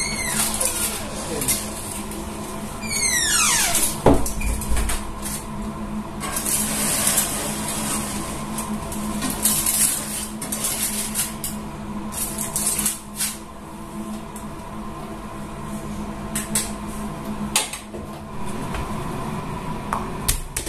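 Kitchen clatter of dishes and utensils being handled, scattered clicks and knocks over a steady hum. Two quick falling whistle-like sweeps come near the start, and a low thump about four seconds in.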